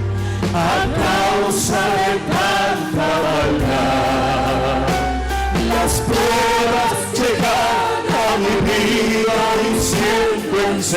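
Spanish-language Christian worship song sung by several voices over steady instrumental accompaniment.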